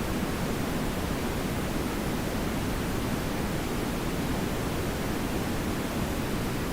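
TV static noise sound effect: a steady, unchanging hiss, fuller and deeper than a bright white hiss.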